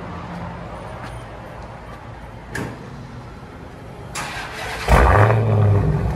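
Dodge Challenger Hellcat's supercharged 6.2 L V8 being started: the starter cranks briefly about four seconds in, then the engine fires with a loud flare and settles into a steady idle. It breathes through a 3-inch resonator (mid-muffler) delete with the factory X-pipe and factory mufflers.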